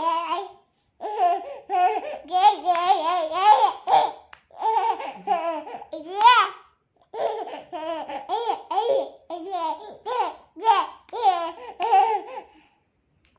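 A toddler laughing and babbling in a high voice, in short runs of giggles broken by a couple of brief pauses.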